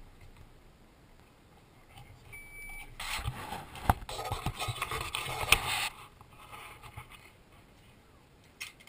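Handling noise from the camera being moved: about three seconds of rubbing and scraping on the microphone, with two sharp knocks during it.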